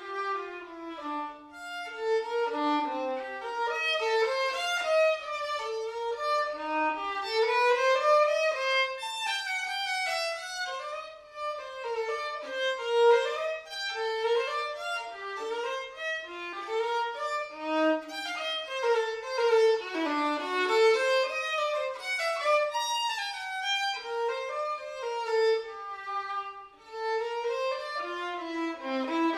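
Solo violin playing a melody, a single line of moving notes.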